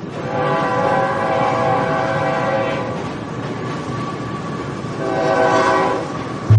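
Diesel locomotive arriving alongside the platform and sounding its multi-tone horn twice: a long blast of about two and a half seconds, then a shorter one about five seconds in, over the continuous rumble of the engine and wheels.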